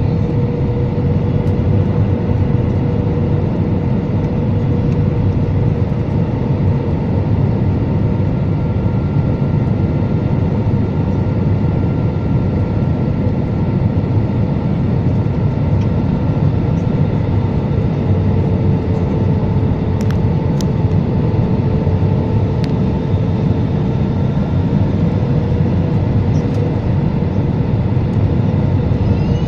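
Jet airliner cabin noise during the landing approach: a loud, steady rumble of engines and airflow with a steady whine that dips slightly in pitch midway.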